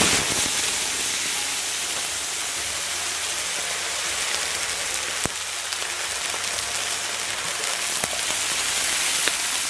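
Water poured into a very hot iron wok, hissing and spattering as it flashes to steam. A sudden loud burst at the start, then a steady hiss.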